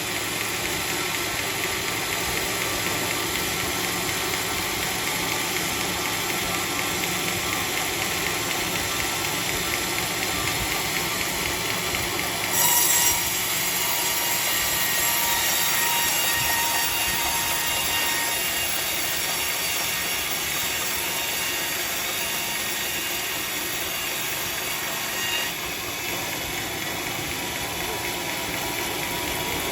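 Sawmill saw running through teak timber, a steady mechanical noise. There is a brief louder burst about halfway through, followed by a few seconds of steady whine.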